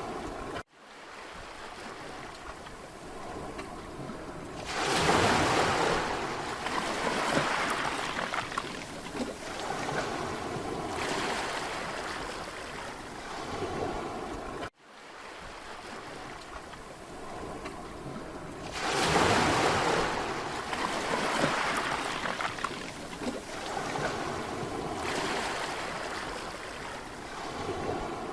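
Mediterranean sea waves breaking and washing on a beach, with a big surge about five seconds in and another about nineteen seconds in, each followed by smaller washes. The sound drops out for an instant twice, about a second in and near the middle.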